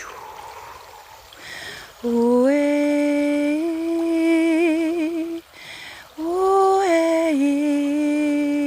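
A singer's wordless, humming-like vocalizing: long held notes in two phrases, with a wavering vibrato in the middle of the first, and an audible breath taken before each phrase. A faint river stream runs underneath.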